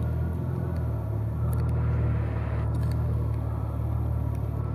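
A car engine running steadily with a low rumble, with a few faint clicks about a second and a half and three seconds in.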